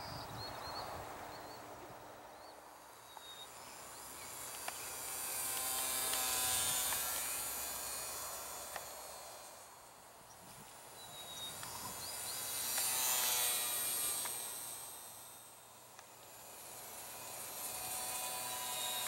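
E-flite UMX PT-17 Stearman ultra-micro RC biplane flying: its small electric motor and propeller give a high buzz. The buzz swells and fades three times as the plane passes overhead.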